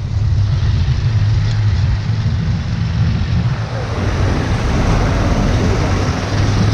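KTM motorcycle engine running steadily under way, with wind and road noise on the camera microphone that swells about four seconds in.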